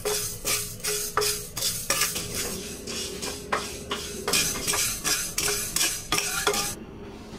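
Dry mung beans being stirred with a spatula in a metal frying pan as they toast, the beans rattling and scraping against the pan in repeated strokes, about two or three a second. The stirring stops near the end.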